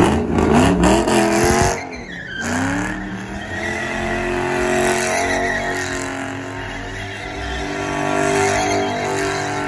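Ford Mustang engine revving hard while the car spins donuts, with tyres screeching and skidding on the pavement. The revs climb, drop sharply about two seconds in, then rise again and stay high.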